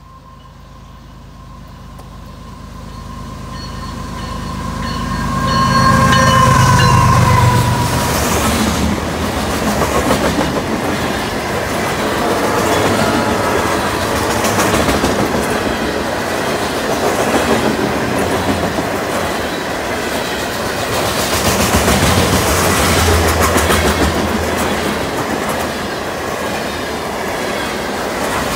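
Canadian Pacific freight train passing: the lead diesel locomotive's engine grows louder and peaks about six seconds in, then the railcars' wheels clatter steadily over the rail joints. A second swell of diesel engine sound comes about two-thirds of the way through, as the mid-train DPU locomotive goes by.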